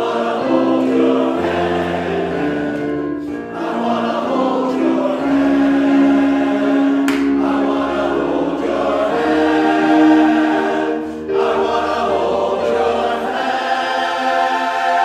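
Men's chorus singing in harmony, holding long sustained chords that shift from one to the next, with short breaks between phrases.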